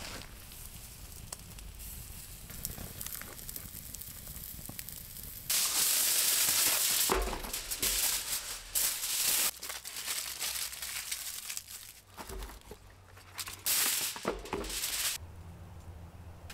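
Meat skewers sizzling over campfire coals with small crackles, then from about five seconds in, aluminium foil crinkling loudly in a run of bursts as it is pulled from the roll and wrapped around potatoes, stopping shortly before the end.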